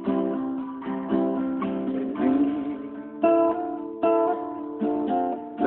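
Guitar strummed, a fresh chord struck about once a second and left to ring.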